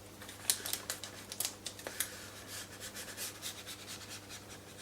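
Sticky tape carrying vinyl stick-on rivet dots being rubbed down hard onto a model aircraft's primed surface. It makes a quiet run of quick, irregular scratchy rubbing strokes.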